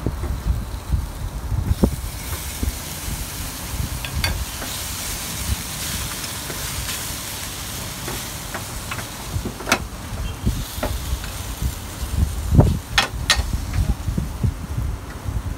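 Pieces of pre-boiled beef sizzling as they hit a preheated Saladmaster stainless steel electric skillet with no oil, the beef frying in its own fat. The hiss swells about two seconds in and eases off about ten seconds in, with a few sharp clicks of a metal slotted spoon against the pan and a low rumble underneath.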